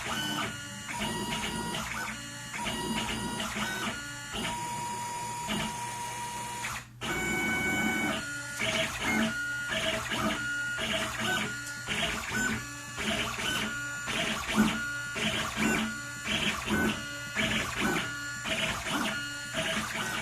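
Stepper motors of a DIY CNC pen plotter running as it draws: whining tones that change pitch and stop and start every fraction of a second as the axes move, with one brief break about a third of the way through.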